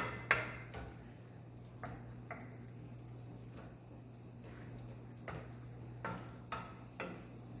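A utensil stirring in a pan of cooking chicken and artichoke hearts, with a few irregular scrapes and taps against the pan over a low steady hum.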